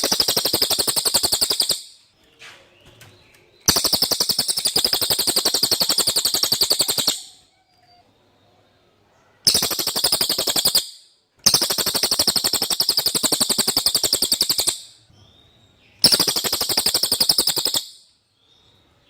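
Cililin songbird singing in five long, very fast, high-pitched trills of evenly repeated notes, each lasting one and a half to three and a half seconds, with short pauses between them. It is the clear cililin song that keepers play as training audio for white-rumped shamas.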